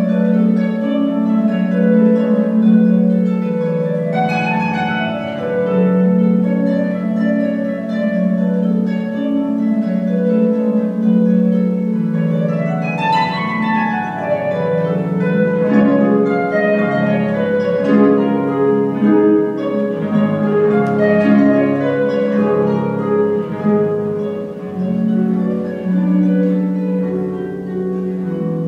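Solo concert harp playing, plucked notes ringing over one another, with quick sweeping runs up and down the strings about four seconds in and again around thirteen seconds in.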